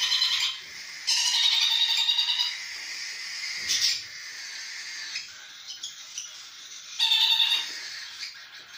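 Young parrots begging while being hand-fed, in harsh, rapidly pulsing calls. Three bouts come at the start, from about one to two and a half seconds, and again around seven seconds, with a short sharp call near four seconds.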